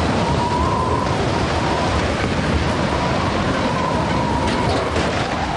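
Loud, steady rushing noise with a faint, wavering whistle-like tone above it.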